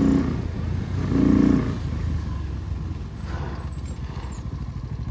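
Motorcycle engine running under way, fitted with a K&N air filter. It gives a brief louder rise in engine note about a second in, then settles to a quieter, steady drone.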